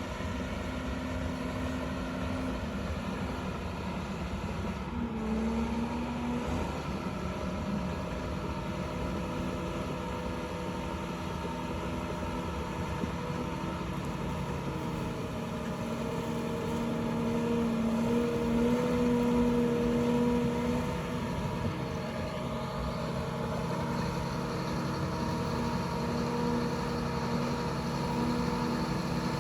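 Diesel engine of a Liebherr 746 crawler dozer running steadily, its engine speed shifting up and down a few times and loudest a little past halfway.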